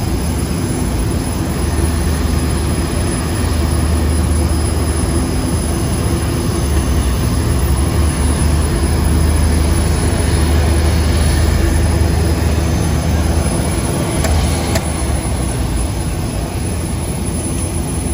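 Boeing 787-8 jet engines running steadily: a continuous low rumble under a broad roar.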